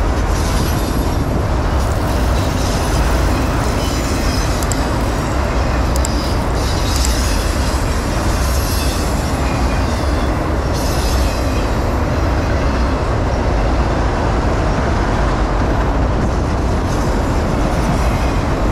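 Freight train of autorack cars rolling past close by: a steady, loud rumble of steel wheels on rail. Higher-pitched wheel noise comes and goes in patches, strongest from about six to ten seconds in.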